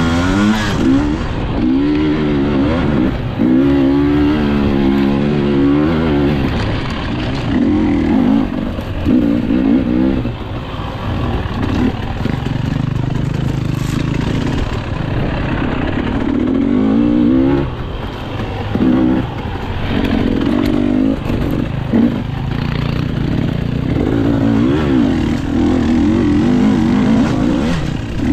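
Dirt bike engine revving up and down as it is ridden along a trail, its note rising and falling over and over as the throttle is opened and closed.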